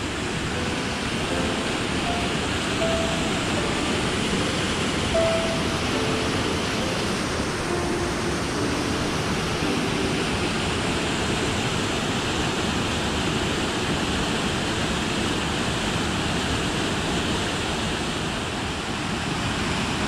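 Small waterfall pouring into a rocky pool, a steady rushing of water.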